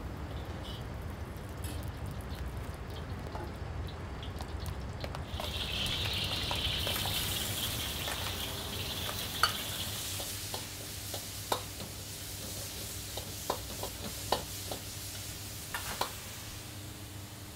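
Food being stir-fried in a hot wok: a loud sizzle starts about five seconds in as it hits the pan, then settles into a steady fry, broken by several sharp clicks of the spatula against the wok. A low steady hum runs underneath.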